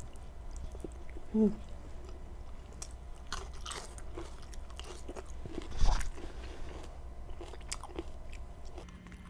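A person chewing and smacking food close to the microphone while eating kare-kare with their hands, with scattered small wet clicks and crunches. A louder knock comes just before six seconds in.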